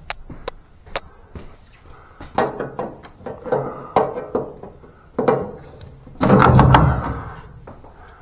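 Handling and work noise: a few sharp clicks in the first second, then irregular knocks and scraping rustles, the loudest and longest about six seconds in.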